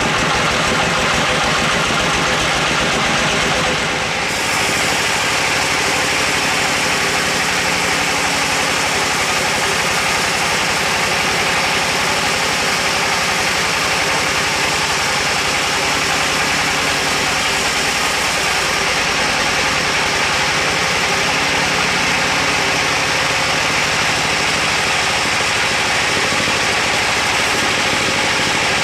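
Band sawmill running and cutting lengthwise through a large log: steady, loud mechanical noise of the saw blade in the wood and its drive machinery. The sound dips briefly and changes in tone about four seconds in, then runs on evenly.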